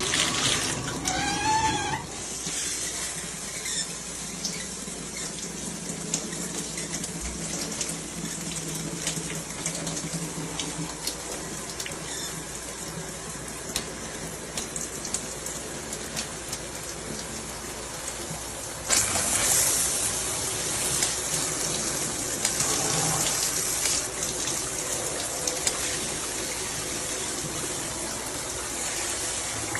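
Water spraying from a shower head, a steady hiss of running water that gets louder about two-thirds of the way through, with a short wavering whistle-like tone near the start.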